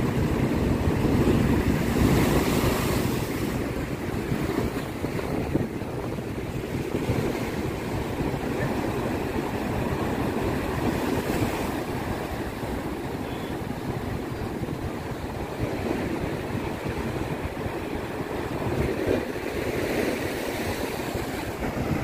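Rough sea surf breaking and washing over concrete breakwater blocks: a continuous rush of surf that swells louder in the first few seconds and again near the end.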